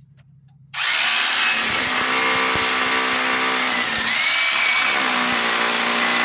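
Corded hammer drill boring into a concrete block wall with a long bit, starting up a little under a second in and then running steadily under load.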